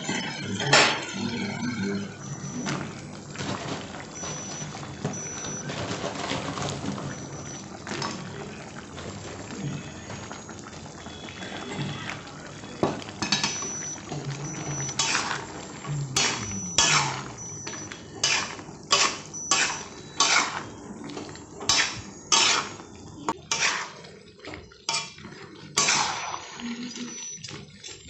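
A steel spoon stirring and scraping through thick sauce in a black iron kadai, with clinks against the pan. From about 15 seconds in come a string of sharp taps, roughly one every second, as the spoon knocks on the pan.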